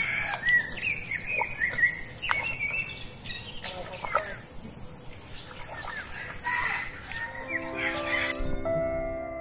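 Chickens and other birds calling, many short chirping calls, with a few light splashes of hands pushing rice seedlings into the flooded mud. Background music comes in near the end.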